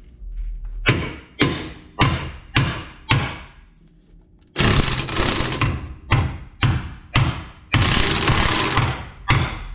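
Steel hammer blows on a ball joint press, about two a second, each ringing briefly. Between them come two short runs of an impact wrench turning the press screw, about four and a half seconds in and again near eight seconds, as a new ball joint is forced into its bore.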